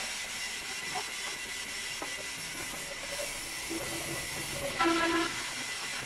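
Sawmill band saw machinery running with a steady hiss and a constant high whine, with light knocks of wood being handled. A brief pitched sound rises about five seconds in and is the loudest moment.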